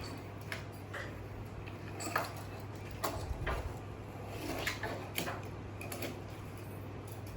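Toy cars being handled and set into a toy car-parking set: a few scattered light clicks and knocks.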